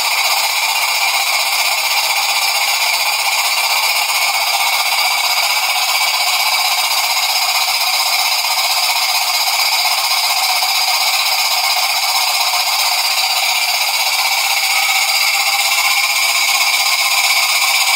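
Jensen 20G model steam engine running steadily, with its belt transmission driving a model beam water pump. It makes an even, continuous mechanical running noise with no distinct beat and no pauses.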